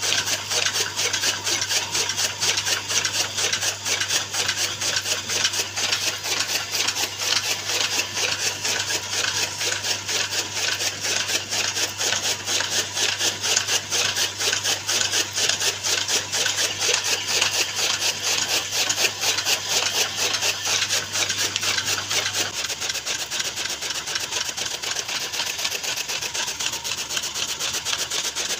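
Electric-motor-driven chaff cutter running while fresh green fodder is fed in by hand, its blades chopping it in a fast, continuous rattle over the motor's hum. The low hum drops away about three-quarters of the way through while the chopping carries on.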